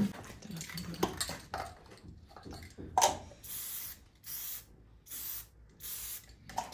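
Aerosol spray-paint can sprayed in four short hisses, marking an outlet spot on a wall. A sharp click comes about three seconds in.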